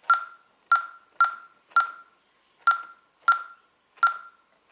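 Honeywell Vista alarm keypad beeping once for each key press as a code is keyed in: seven short, sharp beeps at an uneven pace, four fairly quick ones, a pause, one more, then two.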